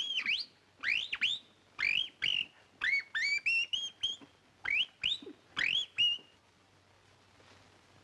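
A whistled bird call, a comedy sound effect for a giant canary: about a dozen quick chirps, each swooping up and down in pitch, in an uneven rhythm that stops about six seconds in.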